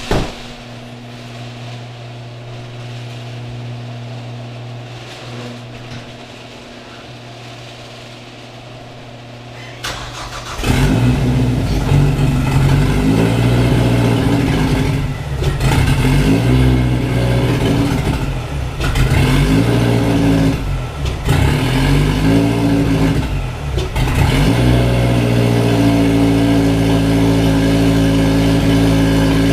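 Turbocharged car engine with a Garrett GTX3071R turbo: a steady hum for about ten seconds, then the engine catches and idles roughly, its speed surging and dipping. About fourteen seconds later it settles into a steady idle.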